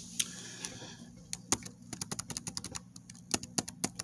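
Faint, irregular light tapping clicks, like typing, coming in quick little runs, with the most coming in the middle and near the end.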